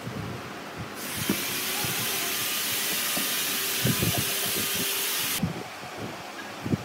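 Compressed air hissing steadily from a nozzle for about four seconds, switched on and off abruptly, with light knocks of handling around it.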